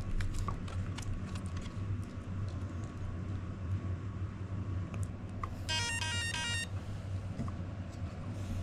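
RC crawler's electronics powering up: a short electronic startup tune of rapid stepped beeps, lasting about a second, about six seconds in. It is the arming signal as the freshly installed steering servo is connected and the truck comes on. A steady low hum and a few faint clicks lie underneath.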